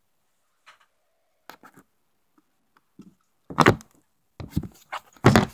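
Handling noise from the recording phone being picked up and moved: a few faint clicks, then three louder knocks and bumps in the second half.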